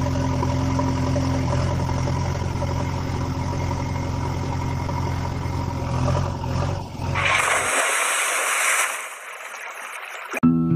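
A vehicle engine running steadily at idle, which stops about three-quarters of the way through, with a burst of hiss overlapping its end.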